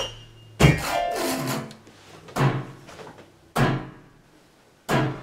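Four loud, jarring chords smashed on a piano keyboard, about one every second and a quarter, each left ringing; the first trails off into a downward run of notes.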